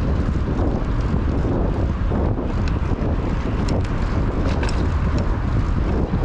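Wind buffeting the camera microphone as a mountain bike rolls along a paved street, a steady low rumble with tyre noise underneath. A few short, faint high ticks come through in the middle.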